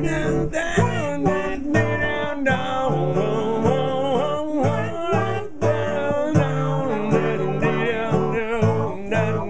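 Guitar playing a lead solo over strummed chords, the melody notes bending and wavering above a steady rhythm accompaniment.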